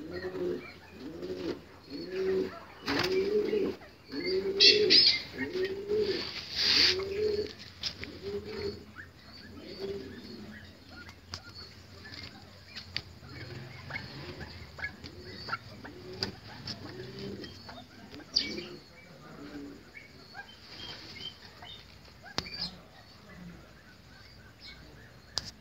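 Pigeons cooing in a long run of repeated arching coos, about one and a half a second, loudest in the first half and fading after; a couple of bursts of wing-flapping come a few seconds in, with small birds chirping thinly throughout.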